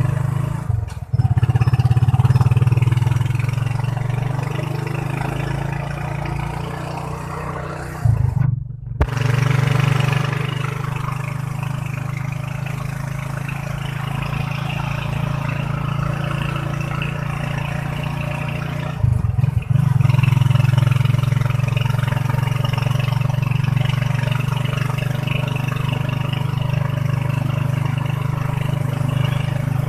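Motorcycle engine of a passenger tricycle running steadily under way, with wind and road noise; the drone drops out briefly twice, about eight and a half seconds in and again near nineteen seconds.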